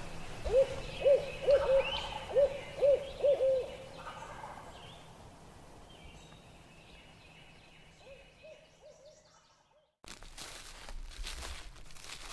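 Owl hooting: a quick series of about eight hoots, then a fainter series a few seconds later.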